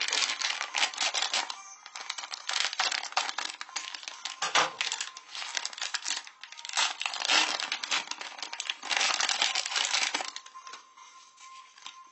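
Wrapper crinkling and rustling in repeated bursts as it is handled and opened by hand, dying down about ten seconds in.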